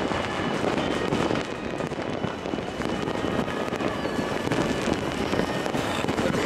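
Fireworks and firecrackers going off all at once, many of them, making a dense, unbroken crackling and popping.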